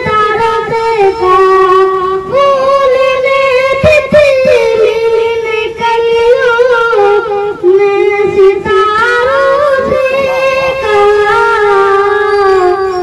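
A boy singing a ghazal solo into a microphone, in long held notes with wavering, ornamented turns and short breaths between phrases.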